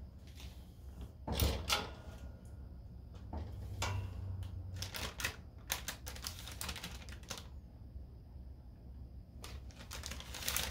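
Stiff parchment paper crinkling and crackling under fingers, in irregular clicks and small clusters of crackles, over a faint low hum.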